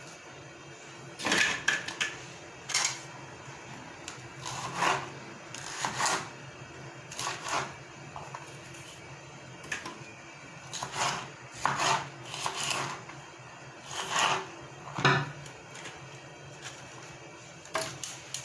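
Kitchenware being handled while boiled beans are drained and rinsed: about a dozen short knocks, clatters and scrapes at uneven intervals.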